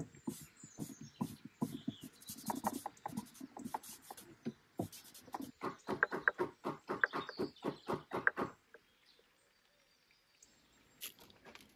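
Hammer tapping wooden dowel plugs into old screw holes in an antique chair's wooden rail: a rapid run of light knocks, about four or five a second at their loudest, that stops about eight and a half seconds in.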